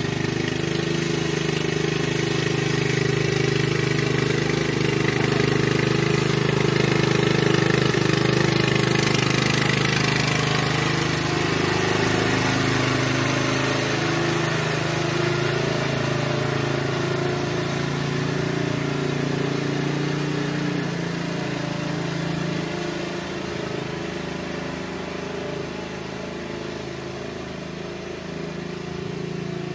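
Riding lawn mower engine running steadily as the mower drives past towing a sprayer. It grows louder as it approaches and slowly fades as it moves away near the end.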